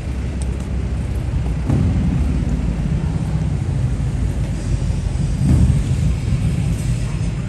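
City street ambience of road traffic: a steady low rumble of cars going by, swelling louder about two seconds in and again around five and a half seconds.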